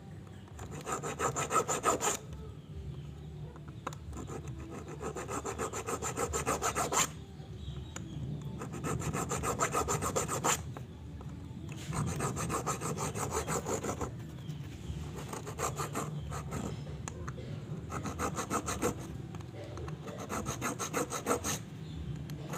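Hand-held hacksaw blade sawing shallow oil grooves into the skirt of an aluminium Yamaha Vega ZR motorcycle piston, in short bouts of quick strokes with brief pauses between.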